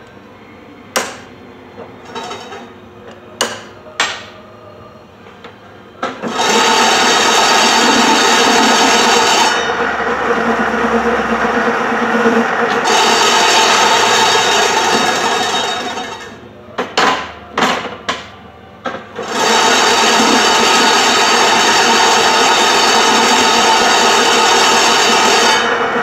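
Bias-cutting machine running as its circular knife cuts a roll of fabric into bias strips: a loud steady mechanical run from about six seconds in until about sixteen seconds, then a second run from about nineteen seconds on. Before and between the runs there are sharp metal clicks and knocks as the roll and machine are handled.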